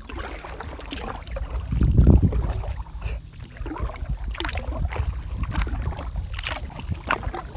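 Kayak paddle strokes splashing in the river every couple of seconds. Beneath them runs a low rumble that swells briefly about two seconds in.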